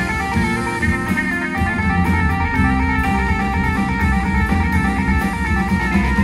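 A band playing rock music, with electric guitar to the fore.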